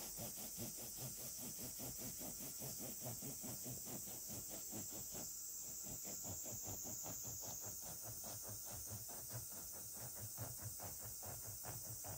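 A long bread knife sawing back and forth through a loaf of home-baked bread, a quick, regular rasping of strokes against the crust and crumb.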